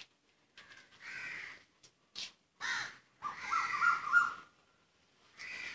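Crows cawing outdoors: about five harsh caws spread across a few seconds, the longest and loudest about three to four seconds in.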